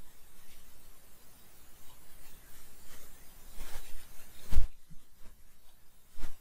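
A computer mouse clicking a few times over quiet room tone, the strongest click about four and a half seconds in.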